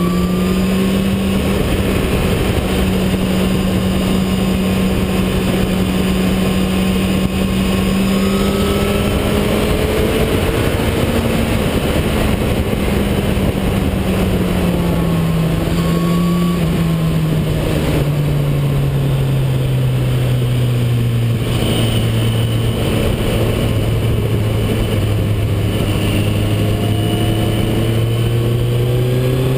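Motorcycle engine running at speed, its pitch rising and falling slowly with the throttle, settling lower about halfway through and climbing again near the end, under a steady rush of wind noise.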